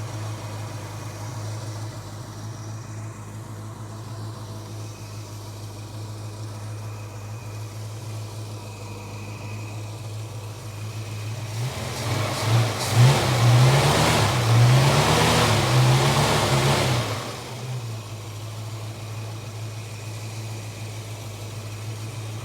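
Holden HK engine idling steadily, then revved up and down several times for about five seconds, roughly twelve seconds in, before settling back to idle.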